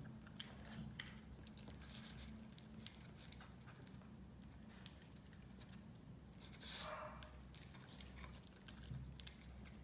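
Pinscher eating chunks of food from a bowl: faint chewing with a run of small, irregular clicks of teeth on food, and one brief louder sound about seven seconds in.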